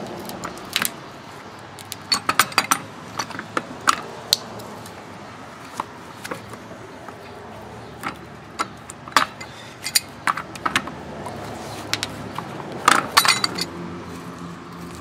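Metal parts of a water heater clinking and clattering as they are handled and taken apart by hand: scattered sharp clinks, with a quick cluster about two seconds in and another near the end.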